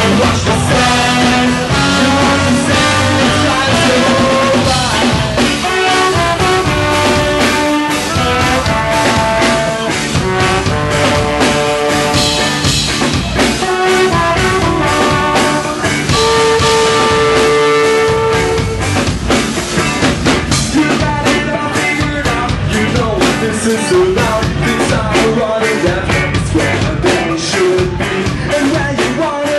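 Ska-punk band playing live: trombone and horns over drums and electric guitar, with held brass notes over a busy drum beat.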